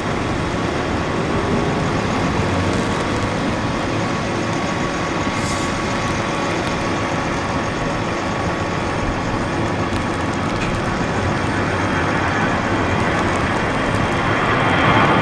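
Airbus A320 jet engines running at takeoff thrust: a loud, steady rushing noise with a faint whine in it as the airliner rolls down the wet runway and lifts off. It grows louder near the end as the climbing aircraft comes closer.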